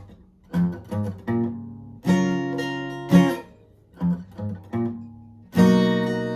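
Guitar tuned a half step down, playing the song's riff: short plucked notes, with two chords struck and left ringing, about two seconds in and again near the end.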